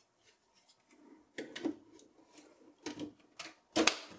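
Plastic front cover of a Dell OptiPlex 9020 case being fitted by hand: a string of clicks and knocks against the metal chassis, the loudest near the end as it snaps into place.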